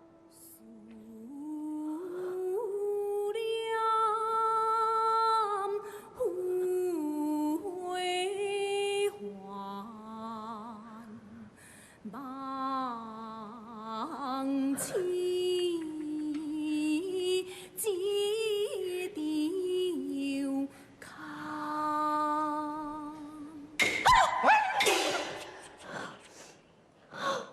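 A slow solo melody of Taiwanese opera music, with long held, wavering notes that glide between pitches, sounding close to humming. Near the end, a brief loud noisy crash-like burst cuts across it.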